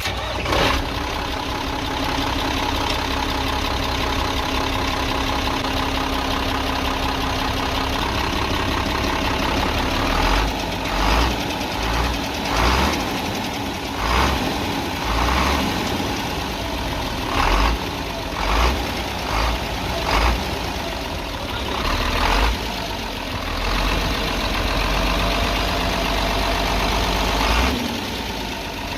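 24-valve Cummins 340 truck diesel engine running, revved in short repeated bursts from about ten seconds in. Its owner hears a tick-tick in it, which he blames on the tappet clearance.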